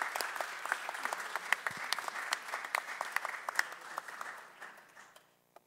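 Audience applauding, the clapping dying away a little past five seconds in.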